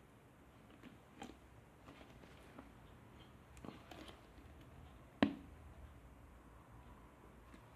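Quiet handling noises: scattered soft taps and clicks, with one sharper knock about five seconds in.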